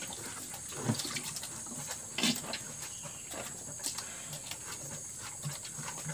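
Cow drinking from a plastic bucket with its muzzle in the water: irregular slurps, sucks and small splashes, with two louder slurps about one second and two seconds in.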